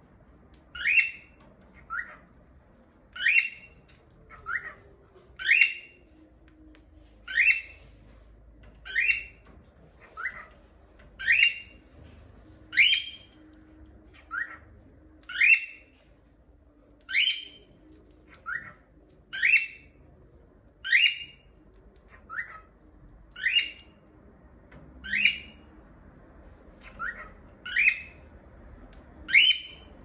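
A cockatiel calling over and over: a loud shrill call about every two seconds, each followed by a shorter, lower call.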